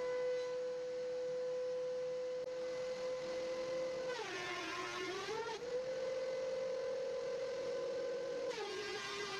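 DeWalt benchtop thickness planer running with a steady high whine. Twice, about four seconds in for a second and a half and again near the end, the whine drops in pitch and a rough cutting noise rises as the board on the sled passes under the knives. The cut sounds the same along the length of the board, the sign that the planer is taking an even cut and the face is now flat.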